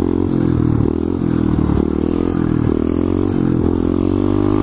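SSR 125cc pit bike's single-cylinder four-stroke engine running hard through a wheelie, its pitch rising and falling as the throttle is worked and climbing near the end.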